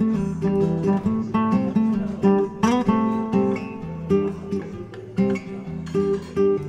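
Acoustic guitar background music: a melody of quickly plucked notes, several a second, over lower sustained notes, with a sliding note a little past halfway.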